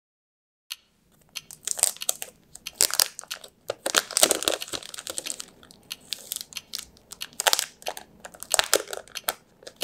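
Clear plastic packaging crinkling as hands handle and open a passport-size Traveler's Notebook refill sleeve: irregular crackles and rustles starting just under a second in.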